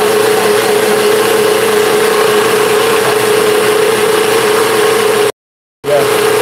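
NutriBullet blender motor running steadily with a high whine, grinding dry rolled oats into flour. The sound breaks off completely for about half a second near the end and then resumes.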